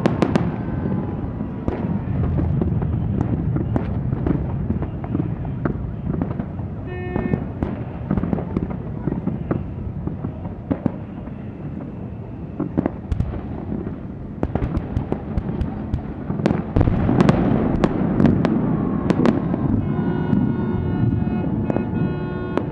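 Fireworks display: a dense run of sharp cracks and bangs over a continuous low din, heaviest about seventeen to nineteen seconds in.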